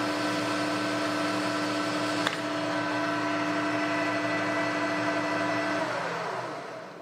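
Metal lathe running at steady speed with a motor and gearbox hum. A sharp tick comes about two seconds in. Near the end the lathe is switched off and winds down, its pitch falling as the spindle slows.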